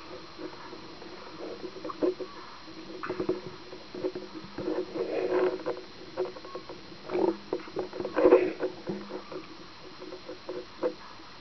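Lake water lapping and sloshing against a waterproof camera housing held at the surface, heard muffled through the housing as irregular splashes and knocks, the strongest about five and eight seconds in.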